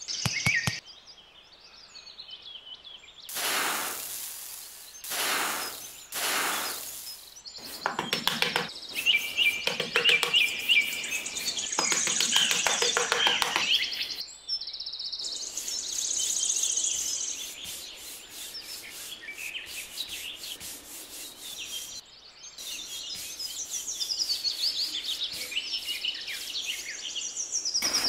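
Wood being rubbed or sanded in three long strokes, then a run of quick scraping clicks, over steady chirping birdsong.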